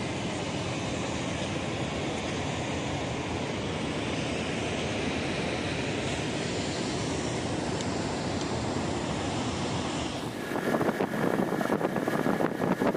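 A steady, even rushing noise. About ten seconds in it gives way to louder, fluttering wind noise on the microphone of a vehicle moving along a road.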